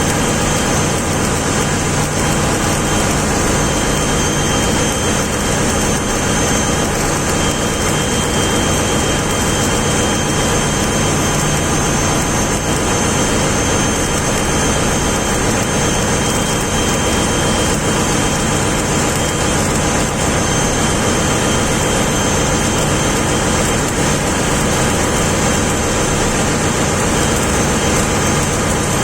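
Ship's machinery running steadily: a loud, constant drone with faint steady high whines over it.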